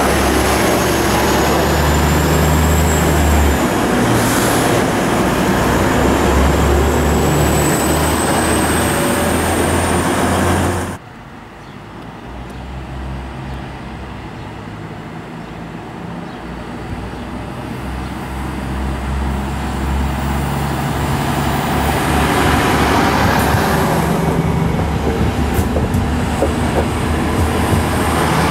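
DB class 633 (Pesa Link) diesel multiple units moving along a station platform: a steady diesel engine hum with a thin high whine that rises in pitch. About eleven seconds in the sound cuts off abruptly, then builds up again as a coupled pair of class 633 units approaches and pulls in alongside.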